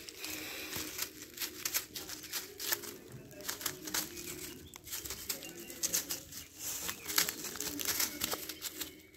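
A landed fish flopping and thrashing on dry leaves and bamboo litter, making irregular crackling rustles that come in quick clusters.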